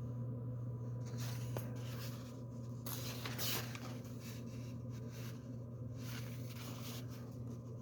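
Pages of an old paper magazine being turned and handled, rustling in several short spells, over a steady low hum.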